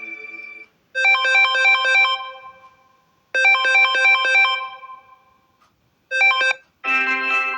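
Samsung Galaxy M32 ringtones played one after another. The end of one fades out, then a bright melody of quick, short chiming notes plays twice with a pause between, starts a third time and is cut off, and a different ringtone with held notes begins near the end.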